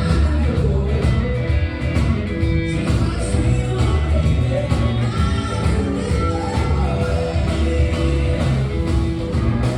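Background music: an upbeat song with singing and a strong bass line.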